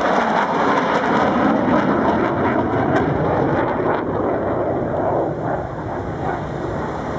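Jet noise from an F/A-18 Hornet's twin engines as it flies past, a loud steady rush that eases a little in the second half.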